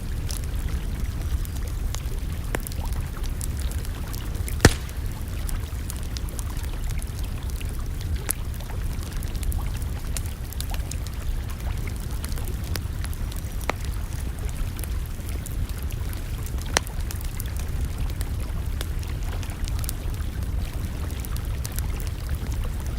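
Campfire crackling, with scattered sharp pops over a steady low rumble; the loudest pop comes about five seconds in, another near the seventeenth second.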